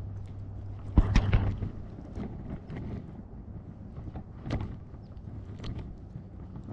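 Handling noise: a quick cluster of knocks and scuffs about a second in, then a few scattered clicks, over a low steady hum that fades after the first two seconds.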